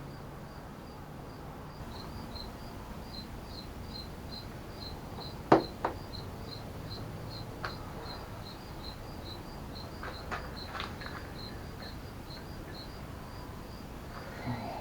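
A cricket chirping steadily in the background, about two or three high chirps a second, with a few sharp clicks, the loudest about five and a half seconds in.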